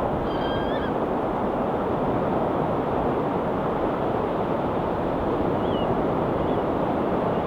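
Steady wash of ocean surf on a rocky shore. A gull gives one short call just after the start, and two fainter calls come near the end.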